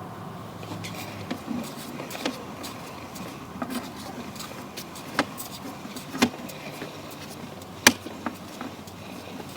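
A handful of irregular sharp clicks and knocks over a steady low background, the loudest a little before the end, from handling a sewer inspection camera's push cable and reel.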